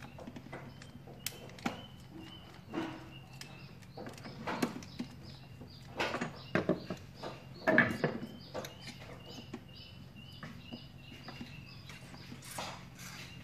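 Small clicks and knocks of hands working wires and terminals into a plastic electrical box, loudest about halfway through, over a steady low hum. Two runs of short, quickly repeated high chirps sound in the background.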